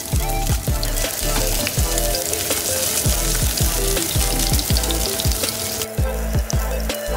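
Oil sizzling in a nonstick frying pan as bell pepper pieces and eggplant slices fry. The sizzle thins out near the end, over background music with a steady beat.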